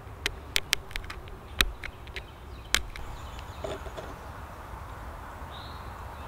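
Sharp clicks, about seven in the first three seconds, as tiny flakes snap off a flint arrowhead under pressure from a split deer leg bone tool, notching its base.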